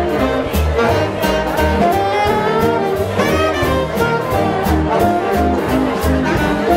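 A live swing big band playing: saxophone section and brass carrying the tune over piano, a bass line and drums with a steady beat.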